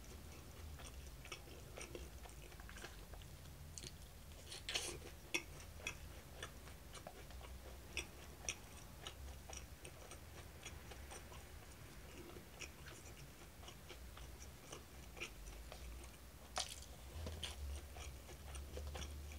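Faint chewing of tempura and rice, with scattered light clicks and taps as chopsticks work in a plastic takeout tray.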